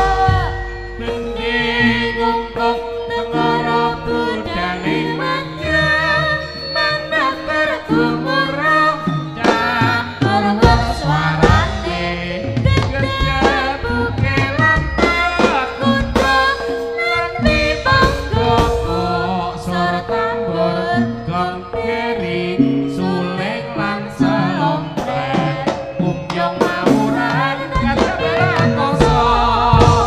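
Live jaranan sentherewe ensemble music: hand drums and gamelan-style percussion keep a steady beat under a wavering melody line.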